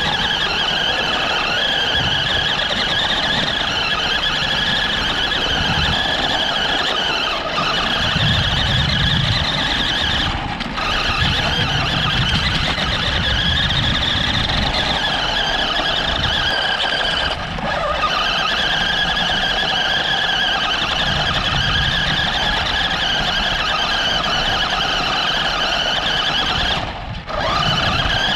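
RC car motor whining steadily at a high pitch while it is driven around in sand. The whine drops out briefly a few times as the throttle eases, most clearly near the end.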